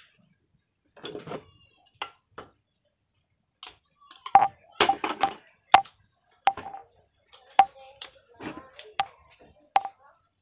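Metal striking metal: irregular sharp taps and clinks, each ringing briefly at the same pitch, coming thicker from about four seconds in.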